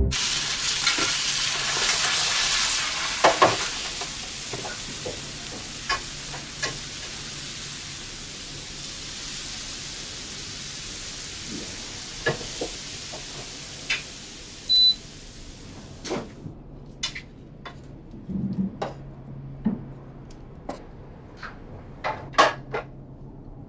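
Food sizzling as it is stir-fried in a wok, with the clinks and scrapes of a spatula against the pan. The hiss is loudest at first and fades. About 16 seconds in the sizzling stops, and a few sharp clinks and knocks of dishes follow.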